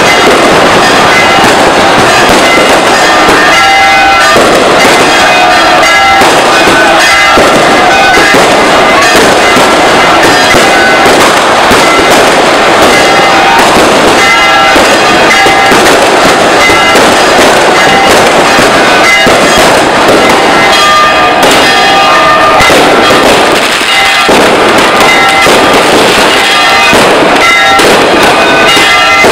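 Firecrackers bursting in a dense, continuous crackle, very loud, with held music tones underneath.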